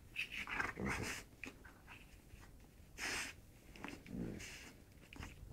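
Two dogs, a Shih Tzu and a German Shepherd, mouthing each other in play: snorting and breathing in short bursts, with brief low growls about a second in and again about four seconds in.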